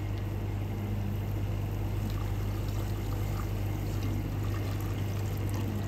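Chicken stock poured steadily from a measuring jug into a stainless steel pot of sautéed carrots, over a steady low hum.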